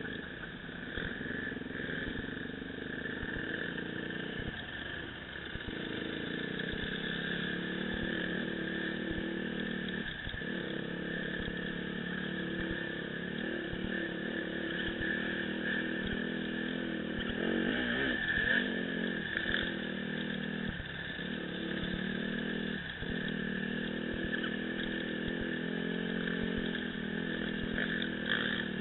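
Dirt bike engine running under way on a trail ride, its note mostly steady. The pitch dips and climbs briefly a few times, as the throttle is eased off and opened again.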